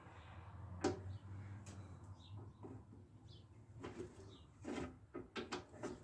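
Scattered knocks and clicks of hand work, the sharpest about a second in and a quick cluster in the second half, over a low steady hum, with faint bird chirps in the background.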